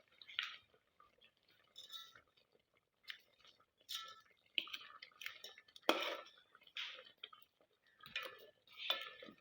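Cooking utensils and dishes clinking and scraping in short, irregular strokes, a few of them ringing briefly.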